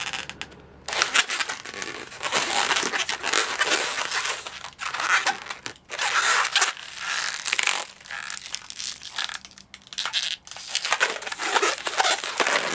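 A 260-size latex twisting balloon being squeezed and twisted by hand to form a small bubble: rubbery rubbing and stretching noises in repeated bursts, starting about a second in.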